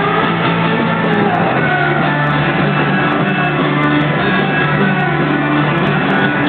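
Live band music playing loud and steady, an instrumental stretch of a concert song with no sung words.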